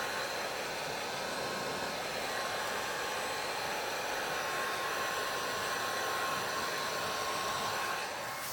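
Electric heat gun blowing steadily, a constant rushing hiss with a faint steady whine, as it heats vinyl tint film on a headlamp to set the adhesive. It falls away near the end.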